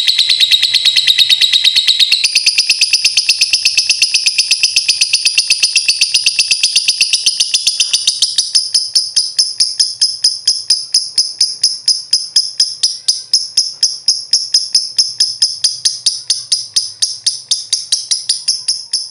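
A lovebird singing one long, unbroken trill of very fast, high-pitched chirps, many each second. It gets thinner and higher after the first half and fades out at the end.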